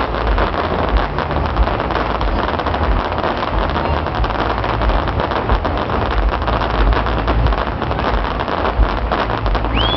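Fireworks display: a dense, continuous crackle of countless small pops with a low rumble underneath. Right at the end, a high whistle begins.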